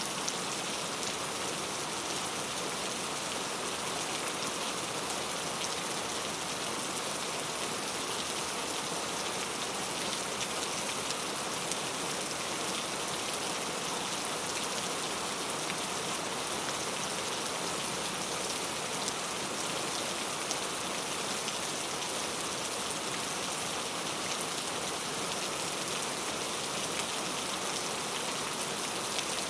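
Steady rainfall, a dense even hiss of drops striking a surface with fine individual drop ticks through it.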